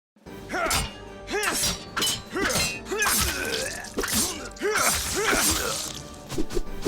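A rapid series of sword combat sound effects: blade slashes and clashing steel with a bright metallic ring, mixed with short shouted attack grunts.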